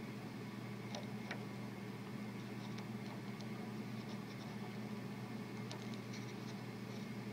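Faint scratching and light ticks of a soldering iron and solder working against the small metal parts of a 12-volt cigarette lighter adapter, a few ticks about a second in and a cluster near the end. A steady low hum runs underneath.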